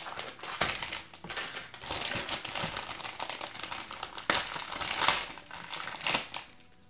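Foil blind-bag packet crinkling and tearing as it is ripped open by hand: a dense run of crackles and sharp snaps that eases off just before the end.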